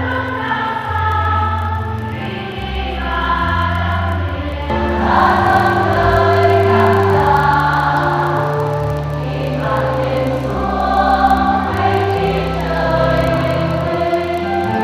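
Church choir singing a slow hymn, with held low accompaniment notes under the voices.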